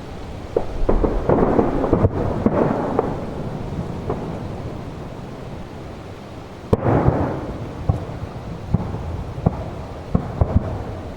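Aerial firework shells bursting, each bang followed by a rolling rumble. A dense flurry of bangs comes in the first few seconds, one big bang a little past the middle, and then scattered smaller bursts.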